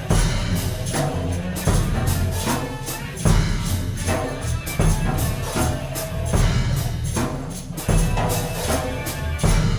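Free experimental ensemble music: percussion strikes at an uneven slow pace over a constant low bass, with some sustained pitched tones.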